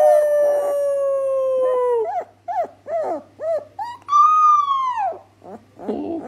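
A person howls one long note that sinks slightly, followed by short howling notes and, about four seconds in, a higher, arching howl from a young puppy.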